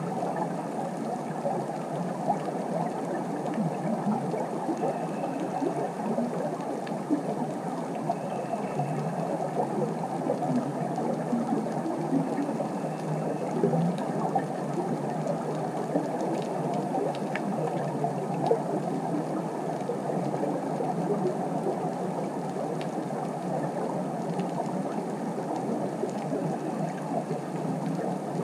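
Steady, muffled underwater ambience, a dense grainy hiss, with a few faint clicks in the second half.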